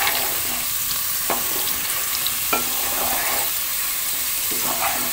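Whole parboiled potatoes sizzling steadily as they fry in hot oil in a non-stick kadai, while a wooden spatula turns them, scraping and knocking against the pan a few times.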